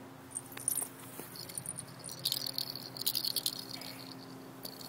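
Small plastic cat toy balls rattling as they are shaken and handled, in two main bursts of crisp, high-pitched clatter.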